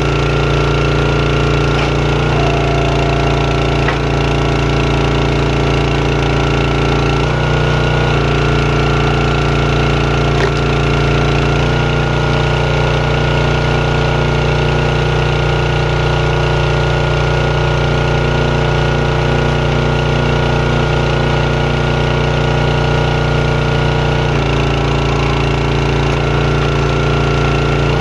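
Gas engine of a 27-ton Champion hydraulic log splitter running steadily while splitting firewood rounds. Its tone changes several times as the hydraulic ram takes and releases load.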